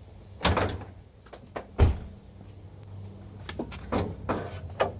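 Knocks and a heavy thud from a Jeep Cherokee XJ's body, then a run of metal clicks and knocks near the end as the hood's safety catch is released and the hood is lifted.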